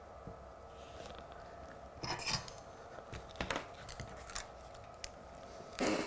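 Metal helping-hands clips and bench tools being handled: scattered clicks and short clattering rattles, the biggest about two seconds in and just before the end, over a faint steady hum.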